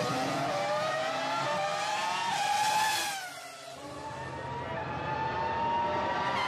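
Race car engine sound effect revving at high pitch. The pitch climbs, falls away with a dip in loudness about three seconds in, then climbs again.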